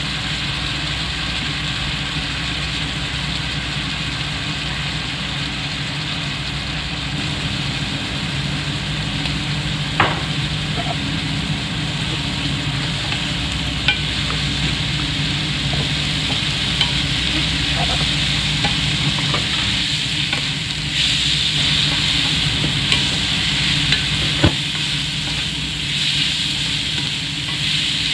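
Ground beef, diced carrots and peas sizzling in a nonstick pan over a steady low hum. A few sharp knocks ring out, and from about 20 seconds in a wooden spatula stirs and tosses cooked rice through the mixture, making the hiss louder and rougher.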